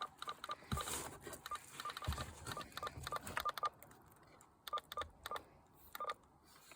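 CB radio giving a string of short electronic beeps and clicks while its controls are worked, closely spaced at first and thinning out in the second half.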